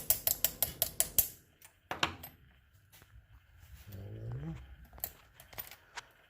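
Rapid, even clicking of small metal parts, about six or seven clicks a second, stopping a little over a second in, then a few scattered clicks and a short low vocal sound that rises in pitch around four seconds in.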